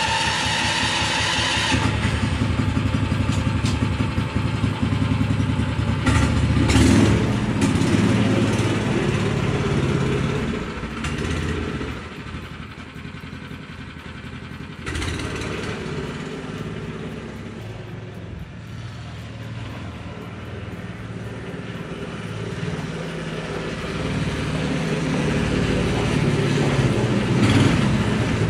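Air-cooled 7-horsepower engine of a Snowdog Compact tracked snow machine running. It is loud for the first several seconds, fades for a stretch in the middle and grows louder again near the end, as the machine is driven away and back.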